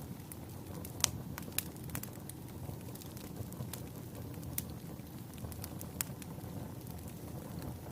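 Wood fire burning in a fireplace: a steady low rumble of flames with scattered sharp crackles and pops, the loudest about a second in and again near six seconds.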